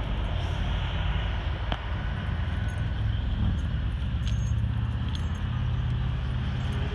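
Steady rumble of highway traffic, with a few light clinks between about two and five seconds in.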